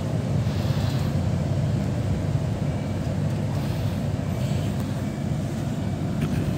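Steady low rumble of a city bus in motion, heard from inside the cabin: engine and road noise with a fainter hiss above it.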